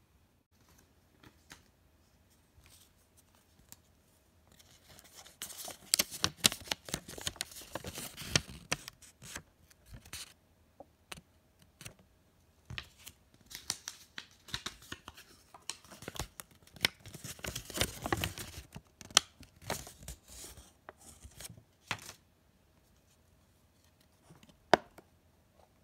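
Hands rustling and scraping cardboard packaging as a thin paper card is worked out of a toy's cardboard box. The noise comes in two long stretches of dense scratchy handling, with one sharp click near the end.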